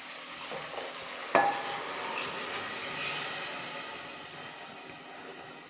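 Coconut milk being poured into a hot aluminium pressure cooker over fried rice: a steady pouring hiss that swells and then fades. A single light knock, the cup meeting the cooker, comes about a second and a half in.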